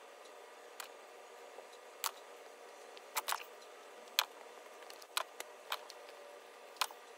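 Small sharp clicks and taps, about nine at irregular intervals, from paintbrushes being handled while cleaner is worked into their bristles by hand.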